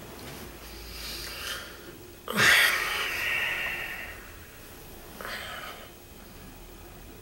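A man lying ill in bed, breathing noisily and sniffing. About two and a half seconds in, a loud, sudden breathy outburst fades away over a second or two, and a shorter breath sound follows about five seconds in.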